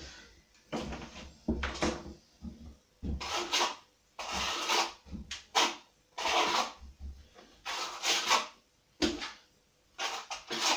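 Plastering trowel scraping and smoothing fresh Multi-Finish skim plaster on a wall, in repeated strokes of about a second each, roughly one a second.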